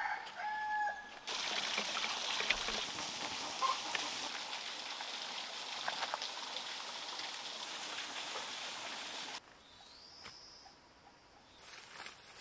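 A rooster crows at the start. Then comes a long steady rush of water poured from a bamboo tube into a clay pot, which cuts off sharply about nine seconds in. A few soft knocks follow near the end.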